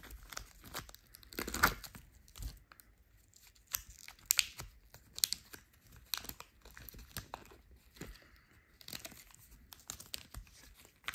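A candy wrapper being peeled and torn off a plastic tray of biscuit balls: irregular crinkling and tearing crackles, a few of them louder.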